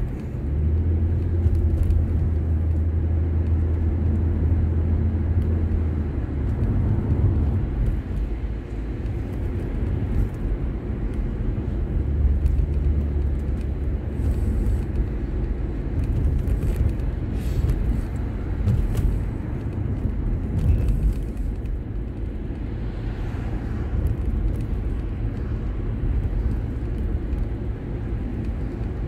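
Car driving through town streets, heard from inside the cabin: a steady engine and road rumble. A deeper engine drone swells for the first few seconds and again about twelve seconds in.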